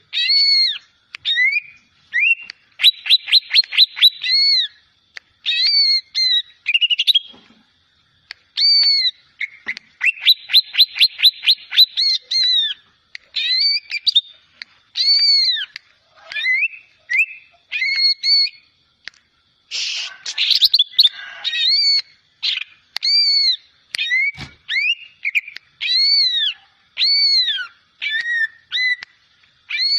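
A juvenile greater green leafbird (cucak ijo) practising its song: repeated arching whistled notes, with a fast rattling trill about 3 seconds in and again about 10 seconds in, and a harsher scratchy phrase about 20 seconds in. A brief low thump sounds once near the end.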